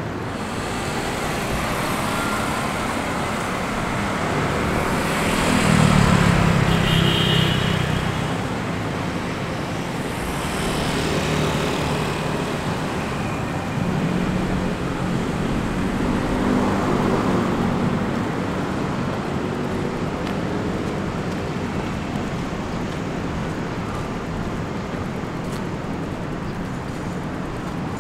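Street traffic: several vehicles pass one after another, the loudest about six seconds in, with a short high squeak about seven seconds in.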